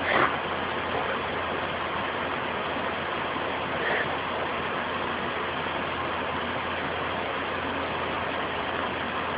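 Basset-terrier mix dog coughing once, sharply, right at the start and more faintly about four seconds in, over a steady background noise. The cough is a recurring one whose cause is unknown.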